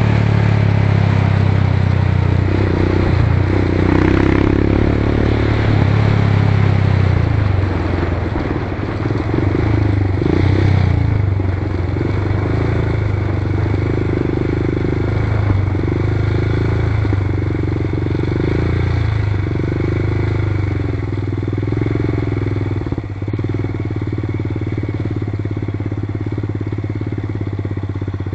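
Off-road motorcycle engine running while riding a grassy trail, its pitch rising and falling with the throttle. It settles to a steadier, slightly quieter note over the second half.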